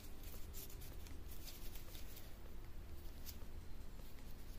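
Faint rustling and scattered light clicks from embroidery floss being sorted through by hand, over a low steady room hum.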